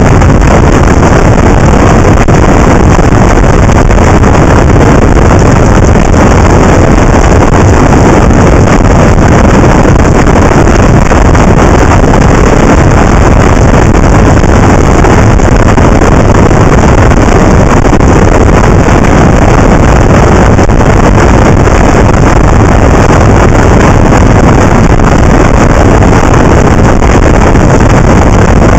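Loud, unchanging wind rush on the microphone of a camera mounted on a moving motorcycle at road speed, drowning out the engine.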